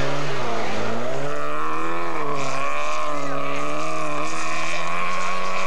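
Rally car engine running at high revs, its pitch dipping about a second in, then climbing and wavering up and down.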